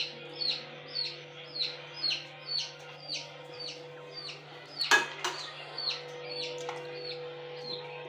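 A bird calling: a short, high, falling chirp repeated about twice a second, growing fainter after about five seconds and stopping near the end. A single sharp clink about five seconds in.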